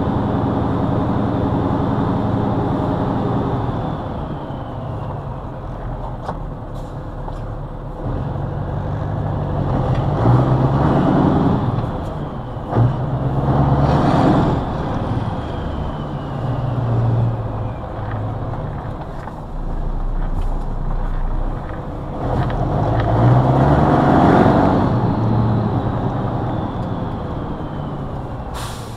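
Scania 142M's V8 diesel engine heard from inside the cab while the truck is driven, its note swelling louder twice under acceleration and dropping back in between as the gears are changed, with faint falling whistles over the engine.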